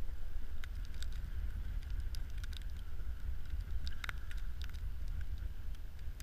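Wind buffeting the microphone as a steady low rumble, with scattered small clicks and rustles from gloved hands handling an ice-fishing rod and reel.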